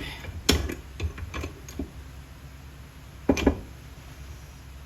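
Metal knocking and clanking as a twisted piece of steel square stock is worked straight. There are several small knocks in the first two seconds and a louder double knock about three and a half seconds in.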